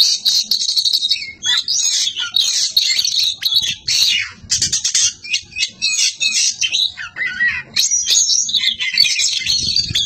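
Oriental magpie-robin (kacer) singing loudly: a long, unbroken run of varied high whistles and chirps, thinning briefly a little after seven seconds in before going on.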